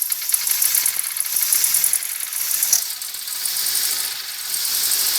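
V8 engine in a Ford Sierra running, with a fast, busy mechanical rattle over a hiss.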